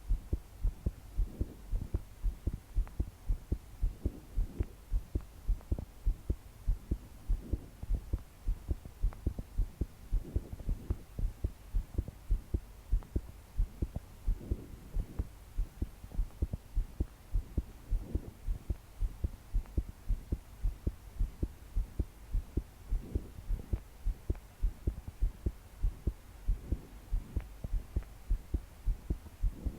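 A young woman's heart beating fast and hard, a steady run of low thumps, the pounding of palpitations. Her slow breaths swell underneath every few seconds.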